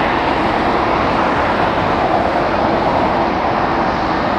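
Jet engines of a Boeing 747-8F freighter, four GEnx turbofans, running at low taxi power: a steady, even rush of engine noise that neither rises nor falls.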